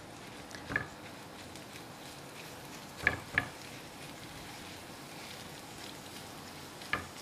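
Spinach leaves cooking in butter and garlic in a frying pan, giving a faint steady sizzle while they are stirred with a silicone spatula. A few short clacks of the spatula against the pan come about a second in, twice around three seconds, and near the end.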